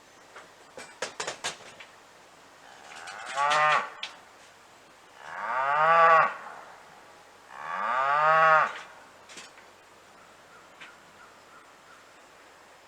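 A cow mooing three times, each call long, the middle one the loudest. Just before, a quick run of sharp clicks about a second in.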